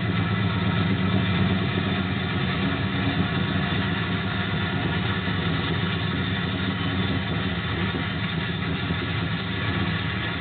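Diesel freight locomotives passing with their engines running steadily: an EMD SD40X with a 645 prime mover leading an EMD SD70M.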